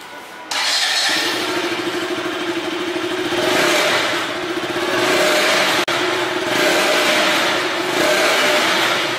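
KTM RC 200's single-cylinder 200 cc engine running through its stock exhaust, coming in about half a second in, with the throttle opened a few times so the note swells and falls back.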